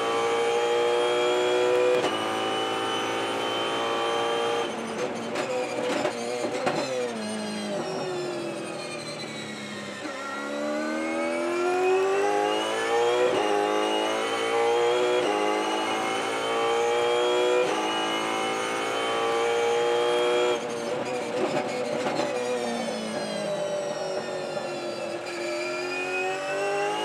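Ford Mustang Supercar's V8 engine at racing speed, revs climbing in a string of upshifts, each ending in a sudden drop in pitch. Twice the engine falls away through the gears under braking, with short sharp flare-ups in revs between the shifts.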